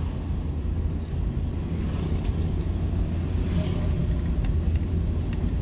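Steady low rumble of a vehicle driving along a road, engine and road noise. Brief hissing swells come about two seconds in and again past three and a half seconds.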